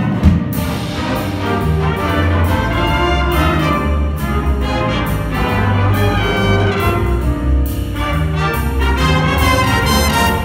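Jazz big band playing: trumpets, trombones and saxophones over piano and drum kit, with a strong low line underneath and a sharp drum accent just after the start.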